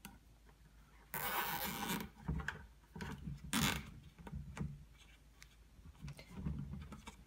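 Plastic zip ties being pulled tight through their ratchet locks around rebar and a plastic bucket rim: a zipping rasp for about a second, about a second in, and a shorter one around the middle, with small knocks and rubbing of hands on the bucket.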